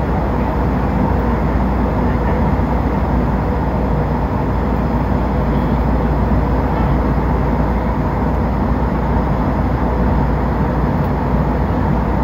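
Steady cabin noise of an airliner in flight: the even rush of engines and airflow heard from inside the cabin, with a faint steady hum.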